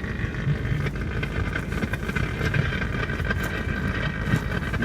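GMC motorhome running with its heater blower fan on, a steady running noise with a few faint ticks.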